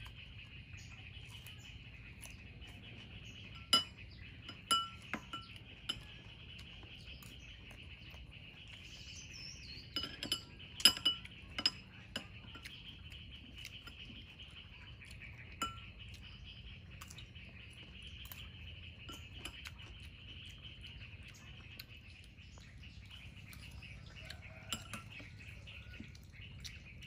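A metal spoon clinking and tapping against a small glass bowl now and then during eating, with a quick run of sharp clinks about ten to twelve seconds in.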